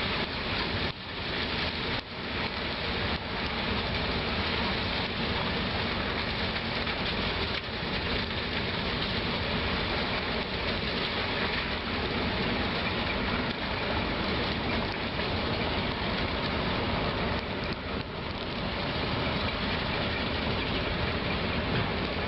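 Heavy machine engine running under a steady rushing, crackling noise, typical of molten slag being dumped from a slag pot.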